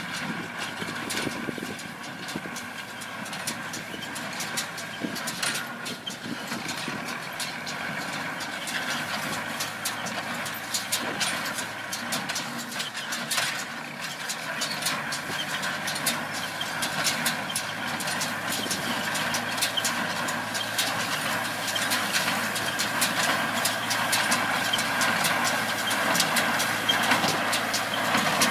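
Tractor engine running steadily, with many short clattering clicks and knocks over it, growing gradually louder.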